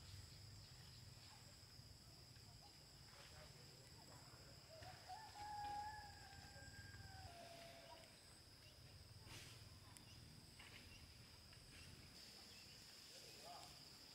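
A rooster crows once, faintly, about five seconds in, the call rising and then held for about two and a half seconds before it falls away; otherwise near silence.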